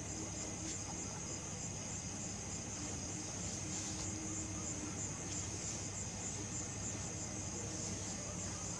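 Crickets chirping in a steady, fast-pulsing trill, with a faint low hum underneath.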